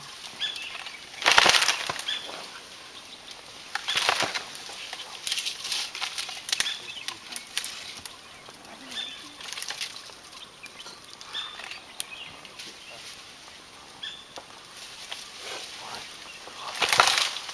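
Tree leaves and branches rustling in repeated rushing bursts as the tree is shaken, the loudest about a second and a half in and near the end.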